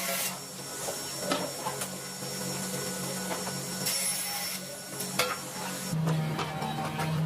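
Wood being worked by hand: rubbing and scraping with a few light knocks, over a steady low hum that grows louder near the end.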